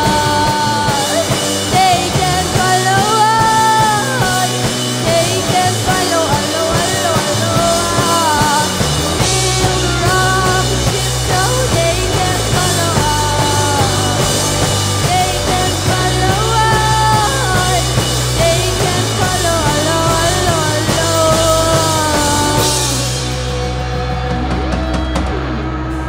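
Live rock band with a woman singing lead over electric guitar, electric bass and drums. Near the end the bright top of the sound falls away and the music gets a little quieter.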